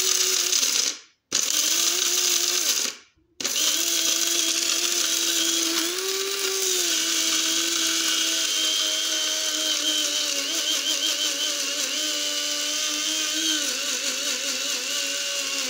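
Small electric blade coffee grinder whirring as it grinds pumpkin seeds into powder. It cuts out twice briefly in the first few seconds, then runs steadily, its pitch shifting slightly as the seeds break down.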